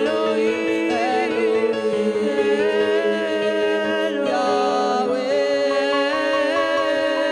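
A woman singing a slow, wavering worship melody without clear words into a microphone, her voice sliding between notes, over steady held background chords.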